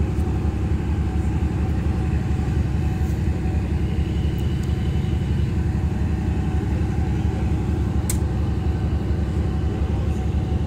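Steady low engine rumble aboard a car ferry, with a single faint click about eight seconds in.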